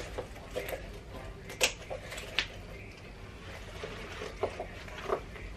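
Scattered light clicks and rustles of a crossbody bag's strap and hardware being handled and adjusted, a handful of separate ticks over a few seconds.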